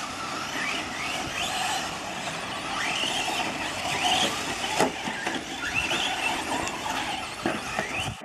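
Radio-controlled off-road trucks racing on a dirt track: their motors whine and rise in pitch again and again as they accelerate, over a steady rush of tyres on dirt. A few sharp knocks come through, about halfway and near the end.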